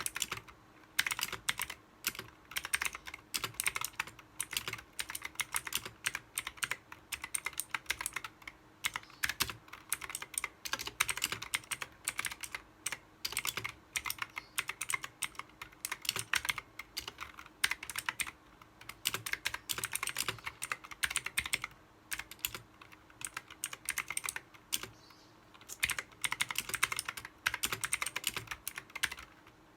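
Typing on a mechanical keyboard: fast runs of sharp key clicks broken by a few short pauses, over a faint steady hum.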